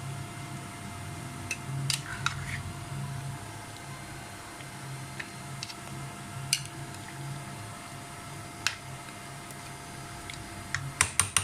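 Yogurt-marinated chicken pieces being mixed in a pot: soft squishing with a few sharp clinks against the pot and a quick run of clinks near the end, over a steady low hum.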